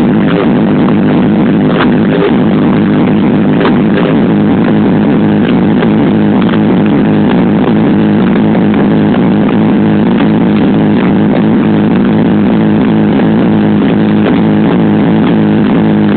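Loud electronic dance music from a club sound system, recorded on a phone: a sustained low synth drone with only a few scattered percussion hits, no steady beat.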